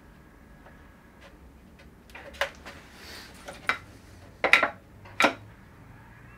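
About five sharp taps and knocks from hands and a small tool against a sheet held flat on the wall, with a soft rub between them; the loudest two come close together about two-thirds of the way in.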